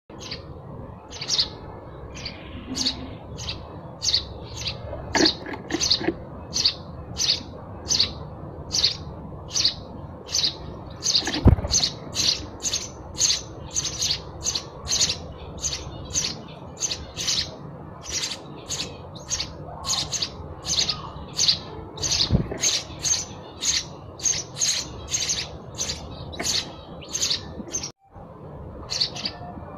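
House sparrow chirping: a long, steady run of short, repeated chirps, about two a second. Two low thumps sound among them, the louder about a third of the way in, and the sound drops out for an instant near the end.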